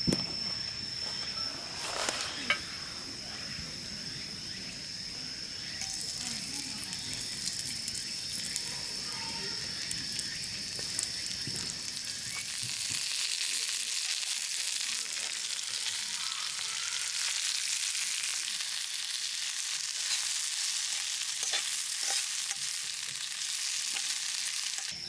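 Food sizzling and frying in hot oil in a small pan, the hiss growing denser and a little louder about halfway through.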